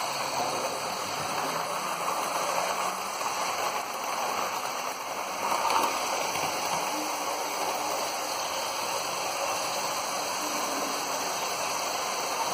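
Hornby Intercity 125 model train running on its track under its ringfield motor, freshly fitted with a replacement brass drive gear: a steady rushing rumble of wheels on rails and motor whirr, swelling briefly about halfway through.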